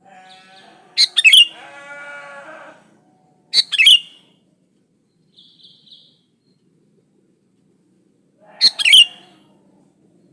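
Sooty-headed bulbul (kutilang) calling: three loud, short bursts of sharp bubbling notes, about a second in, at about three and a half seconds, and near the end, with softer notes between.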